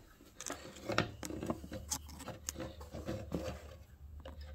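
Scattered light clicks and taps of metal parts as a hand works the throttle control lever and linkage on a 5 hp Briggs & Stratton engine, over a low steady hum.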